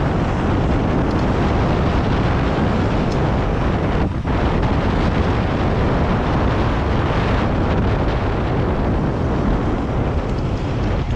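Heavy wind noise buffeting the microphone while riding an electric dirt bike down a gravel trail at speed, a steady loud rush with a brief dip about four seconds in.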